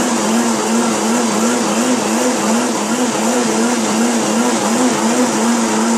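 Blendtec Designer 625 blender motor running loud and steady while blending ice and frozen fruit into a smoothie, its whine wavering evenly in pitch about twice a second as the contents churn.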